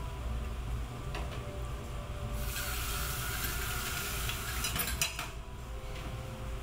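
Kitchen noise: a steady low rumble, with a hiss starting about two seconds in and lasting about three seconds, and a few light knocks around five seconds in.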